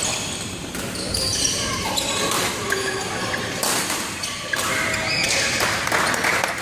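Badminton play: sports shoes squeaking on the court floor and a few sharp racket hits on a shuttlecock, with voices in the background.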